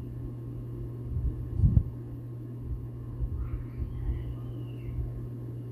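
A steady low hum with an uneven low rumble underneath and a dull thump just under two seconds in.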